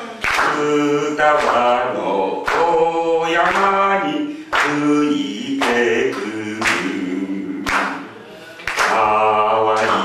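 Elderly men singing a Japanese song together into handheld microphones, in phrases with short breaks between them. The lyrics are about a morning breeze blowing over Futaba hill and little birds.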